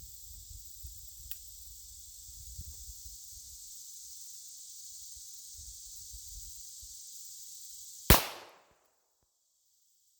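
A single shot from a Springfield Armory 1911 pistol firing .45 ACP, about eight seconds in, with a short echo after it. Before the shot there is only a faint low rumble with a few small knocks.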